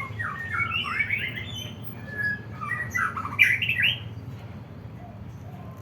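White-rumped shama (murai batu) singing in short, agitated bursts of rapid sweeping notes: one bout at the start, a single note, then a louder bout about three seconds in. This is the kind of song kicaumania keepers play to work up a shama's aggression.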